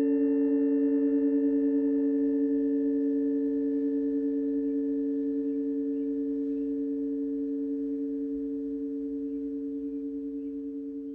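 A chord of planetary tuning forks, set to the Venus, Mars and Pluto tones, ringing together as several steady pure tones with a fast wavering beat, slowly fading away.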